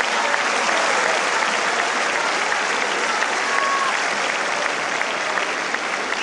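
Large tennis stadium crowd applauding steadily.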